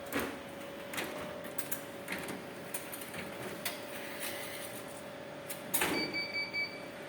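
Clicks and knocks from a cash recycling machine's cassette and cover being pushed shut, with a louder clatter about six seconds in followed by a short electronic beep. A faint steady hum runs underneath.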